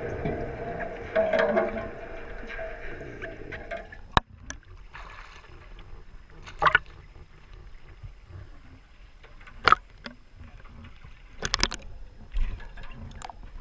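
Water sloshing against a camera at the surface, with a sharp splash every couple of seconds as small waves break over it. A steady hum runs through the first few seconds.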